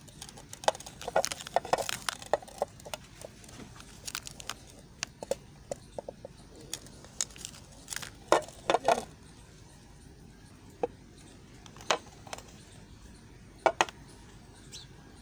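Knife cutting a soft white bar of Lux soap: irregular crisp clicks and crackles in short runs, with quieter pauses between.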